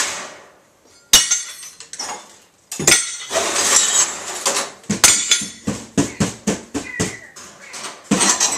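Sledgehammer blows knocking into a TV being smashed apart, with clattering and clinking of broken glass and debris. Two sharp hits come early, then a quick run of knocks later on.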